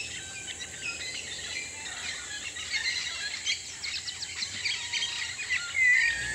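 Mixed tropical forest birds chirping and calling in many short notes over a steady high-pitched insect drone, with one louder curved call near the end.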